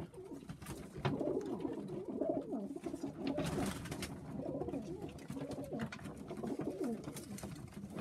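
Several Macclesfield tippler pigeons cooing at once in a small loft, their overlapping coos running throughout, with a few sharp clicks.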